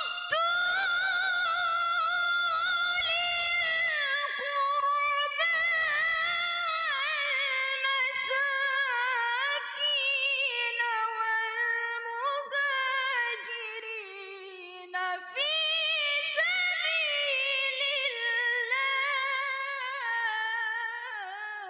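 A teenage girl's tilawah: melodic Quran recitation sung into a handheld microphone. Long, ornamented phrases with wavering runs and held notes, broken by short pauses for breath, softening toward the end.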